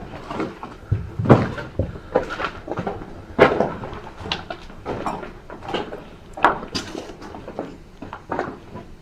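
Irregular footsteps crunching and knocking over debris strewn on the floor, with sharp clatters, the loudest about a second and a half in, again around three and a half seconds and near six and a half seconds.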